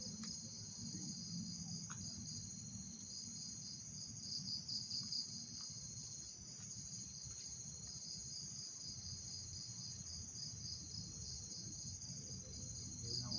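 Crickets chirping, a continuous high trill of fast pulsing chirps that swells briefly about four seconds in, over a low hum.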